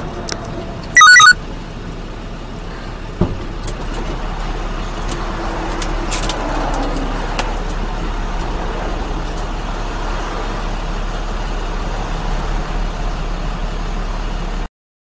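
Highway traffic passing a stopped truck, heard from inside its cab over a steady low hum. About a second in there is a short, very loud pitched tone, and a single sharp knock about three seconds in.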